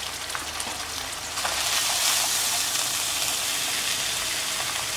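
Ghee sizzling in a nonstick kadai around browned onion paste and freshly added dry spices and ginger-garlic paste. The sizzle grows louder about a second and a half in as a wooden spatula starts stirring the masala.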